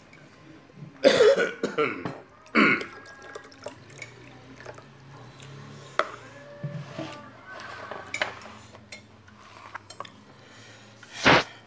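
A man coughing and clearing his throat a few times while eating rice by hand, the loudest bursts about a second in and near the end, with soft clicks and smacks of eating between.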